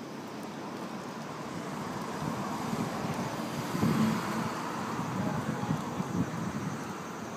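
Outdoor city rumble with an unseen vehicle passing, its noise swelling to a peak about four seconds in and then fading.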